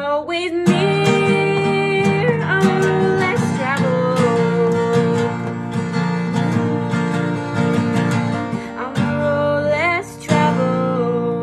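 Steel-string acoustic guitar strummed in a slow song, with a voice singing long, wavering notes over it.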